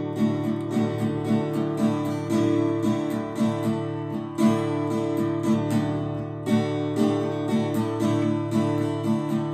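Acoustic guitar strummed in a steady, even rhythm, chords ringing between strokes, with one harder strum about four and a half seconds in.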